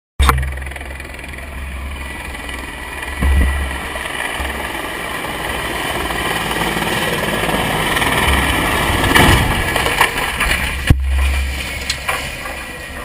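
Steady engine rumble and wind noise from a military vehicle, growing louder toward the middle. About eleven seconds in comes a single sharp bang, the loudest sound, as the Mi-24 helicopter crashes into the ground.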